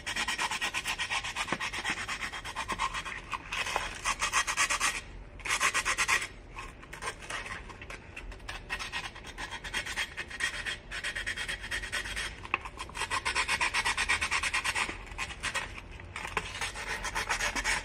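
Fine sandpaper rubbed rapidly back and forth by hand against the chipped rim of a drinking glass, a raspy scratching with a couple of brief pauses, rounding off the sharp edge of the chip.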